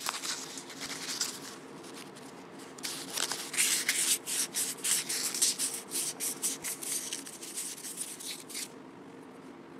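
A small metal ring being scraped by hand with a small flat tool: quick rasping strokes, several a second, that stop shortly before the end.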